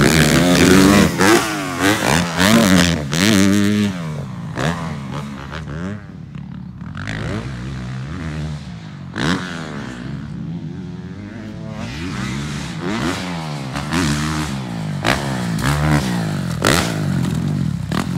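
Several motocross bikes ride the track, their engines revving up and down so the pitch rises and falls with each throttle blip and gear change. The engines are loudest in the first few seconds, fade somewhat in the middle and build again toward the end.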